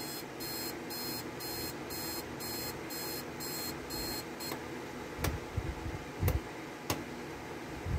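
Spartus Comet II digital alarm clock's buzzer beeping in short high-pitched pulses, about two a second, stopping a little past halfway. A few sharp clicks follow.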